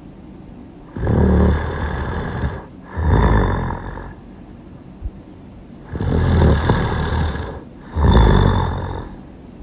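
A person snoring loudly in a slow rhythm: two breaths, each a long rasping snore followed straight away by a shorter one, with quiet pauses between.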